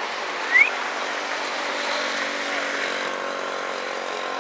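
A steady motor hum, like a small engine running, with a short rising squeak about half a second in.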